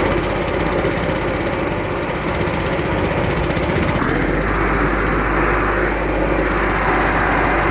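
Shipyard industrial noise: machinery running with a loud, continuous rapid mechanical rattle, like pneumatic hammers at work.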